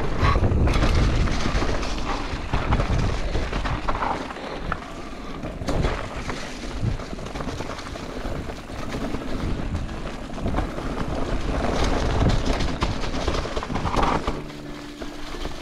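Wind buffeting the action camera's microphone as a Haibike Sduro e-mountain bike rolls fast down a wet, leaf-covered trail, with tyre noise and scattered knocks from the bike over bumps.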